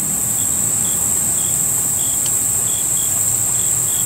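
Steady high-pitched chorus of insects, with faint short chirps recurring about every half second.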